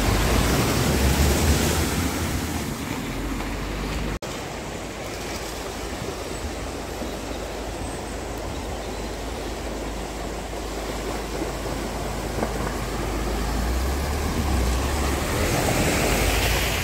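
Cars wading through a flooded ford: a red Vauxhall Astra throws up a loud splash and bow wave at the start, then the sound cuts off abruptly about four seconds in. Steady rushing of the floodwater follows, swelling near the end as a Ford Focus drives through the water close by.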